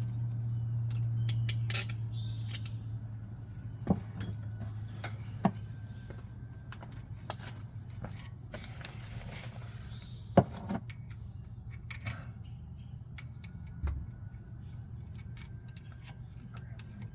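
Scattered metal clinks and knocks as tools and metal parts are handled, the sharpest about ten seconds in, over a steady low hum that fades after the first few seconds.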